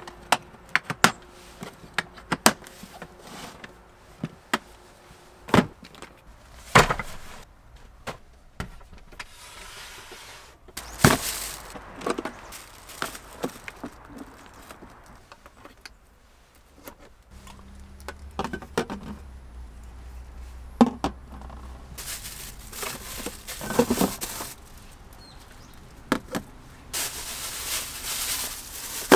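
Hands moving a plastic toolbox and a portable compressor fridge on a wooden floor: scattered knocks, clicks and scrapes, a power cable being plugged in, and the fridge lid opening. A steady low hum runs for a few seconds midway, and a plastic bag crinkles near the end as food goes into the fridge.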